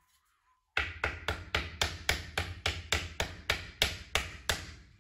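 A hammer striking the top edge of a dovetailed wooden drawer box, knocking the dovetail joints together. It gives a quick, even run of about fifteen sharp blows, about four a second, starting about a second in and stopping shortly before the end.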